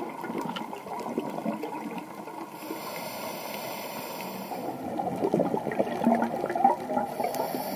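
Underwater sound during a scuba dive: gurgling and crackling of a diver's exhaled regulator bubbles, muffled through the camera's underwater housing, growing louder and burstier about five seconds in.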